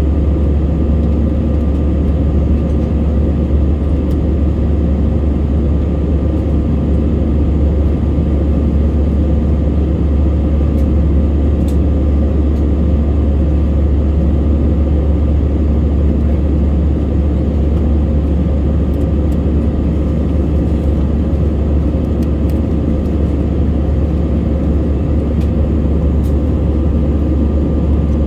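Steady cabin noise of a jet airliner in flight, heard inside the cabin: a constant low rumble of engines and rushing air that holds an even level throughout.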